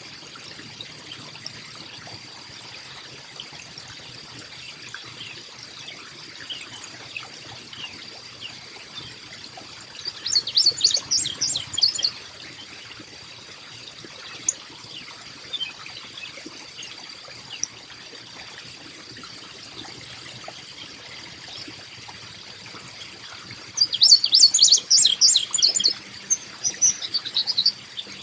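Carolina chickadee calling in two bursts of rapid, high chirping notes, about ten seconds and twenty-four seconds in, over a steady trickle of water.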